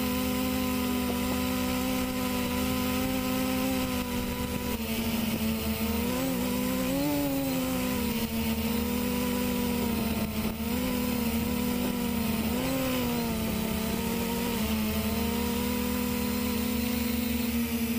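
Quadcopter's four brushless motors spinning 10x5-inch propellers, heard from the camera on the frame: a steady multi-pitched hum whose pitch dips and rises briefly about six to eight seconds in and again between ten and thirteen seconds. The propellers are unbalanced.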